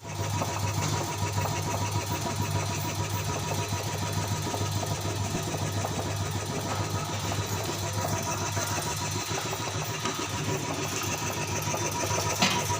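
Mazda E2000 engine idling steadily with an even low hum.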